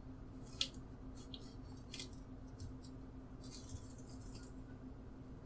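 X-Acto hobby knife scratching through thin plastic bag film: a few short scratches and clicks, the sharpest about half a second in, over a faint steady hum.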